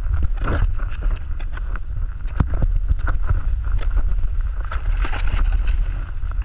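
Wind buffeting the microphone of a pole-mounted camera as a steady low rumble, with a snowboard's base and edges scraping and hissing over snow in short bursts.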